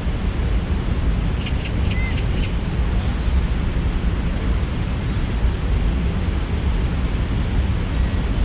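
Wind buffeting the microphone: a steady, low rumbling noise. About a second and a half in, five faint high pips come in quick succession.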